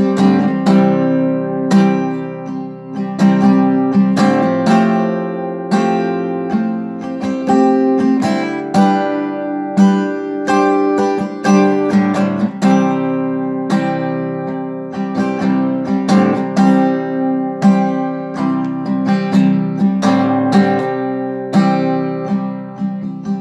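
Acoustic guitar strumming chords in an instrumental break of a folk song, with no singing.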